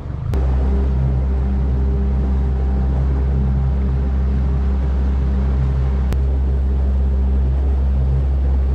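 Boat's outboard motor running at a steady speed, heard from on board as a loud, even low drone.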